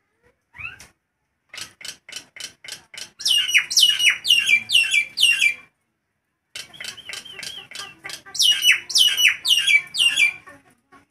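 Nias hill myna calling loudly: runs of short sharp notes build into two bouts of rapid, loud falling whistles, about four or five a second, with a pause of about a second between them.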